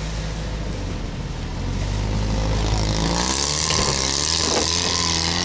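Off-road vehicle engine running and revving up, getting louder about two seconds in, its pitch wavering, with a hissing rush joining about three seconds in.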